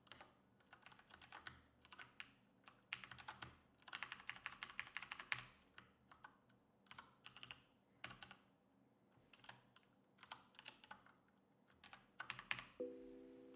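Computer keyboard typing in irregular bursts of key clicks, with a fast run of keystrokes around the middle. Near the end a steady chord of several tones begins.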